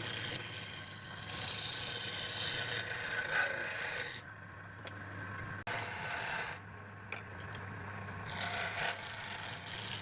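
A tool working wood with a rough rasping, scraping sound that comes and goes in stretches, easing off twice in the middle.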